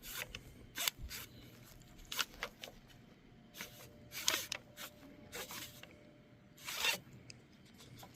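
Recoil starter cord of a Poulan Pro 625 mower engine being let back slowly by the recoil spring: a string of short, irregular rasps as the rope slides through its guide hole and winds onto the pulley, the loudest about seven seconds in.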